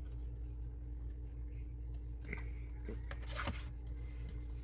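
Small clicks and scrapes of model kit parts being handled and pushed into their slots, the loudest near the end, over a steady low hum.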